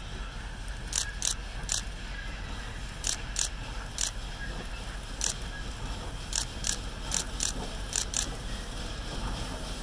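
C&O 1309, a Baldwin 2-6-6-2 Mallet steam locomotive, approaching slowly under steam: about a dozen sharp, hissing exhaust chuffs at an uneven beat, often in quick pairs, over a steady low rumble.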